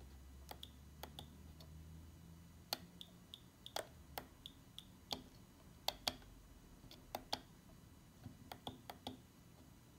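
Small tactile push buttons on an FPV goggle receiver module being pressed repeatedly by a finger: a couple of dozen short, sharp clicks at an uneven pace, as the receiver is stepped from channel to channel. A faint low hum runs under the first few seconds.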